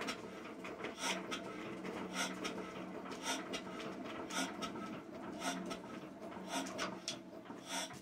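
Witte single-cylinder diesel engine being hand-cranked with the compression relief off, a regular puff roughly once a second as the piston comes over compression, without firing.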